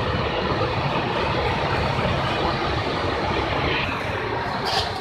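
Steady rumbling roar of an LPG stove burner running under the milk pots, with a brief high hiss near the end.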